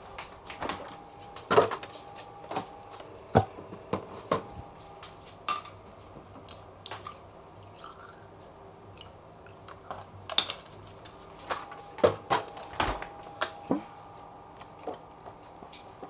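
Kitchen handling sounds: scattered clicks and knocks from a refrigerator door, a plastic milk jug and a glass, with milk poured from the gallon jug into the glass about halfway through.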